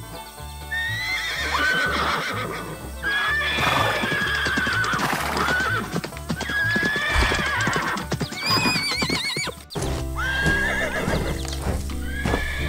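Horses whinnying again and again, with hooves clip-clopping, over background music with a steady bass beat. A longer quavering whinny comes about two-thirds of the way through.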